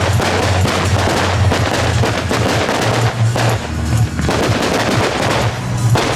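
Fireworks popping and crackling in rapid, dense succession, with loud music playing underneath.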